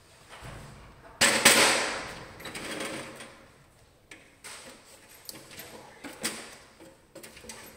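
Aluminium stepladder being carried and handled: a loud clatter about a second in that fades over a second, then lighter knocks and clicks.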